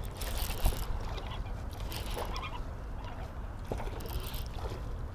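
Steady low rumble of wind on the microphone, with a few faint clicks and knocks from the fishing rod and reel as a hooked bass is reeled in and lifted onto the bank.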